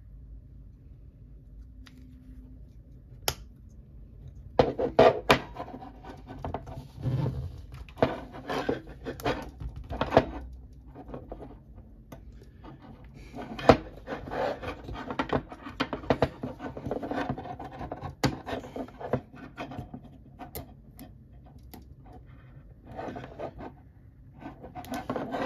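Metal airsoft gas-blowback bolt parts being handled and fitted by hand, knocking and scraping on a wooden desk while they are re-seated to sit clocked correctly: irregular clicks, taps and rubbing. One sharp click about three seconds in, then the handling noise runs almost without pause, with a short lull near the end.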